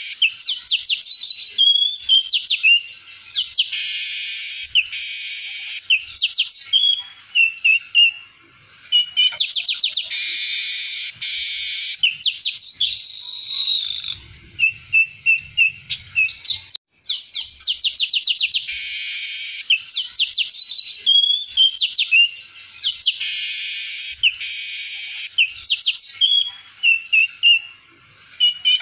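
Streaked weaver (manyar) singing in full song: fast ticking rattles, buzzy wheezing notes and short gliding whistles. The same phrase comes round about every nine seconds, three times over.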